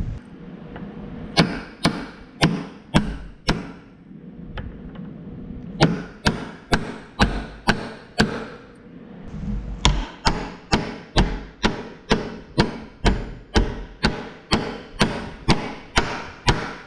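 Hammer blows driving a 3205 bearing onto a Vermeer mower drive pod's shaft to seat it, about two sharp metallic strikes a second, in three runs.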